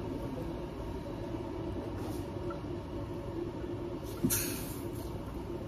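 Steady low rumble of a room's background noise, with a single knock about four seconds in and a short scraping rustle right after it as kitchenware is handled on the counter.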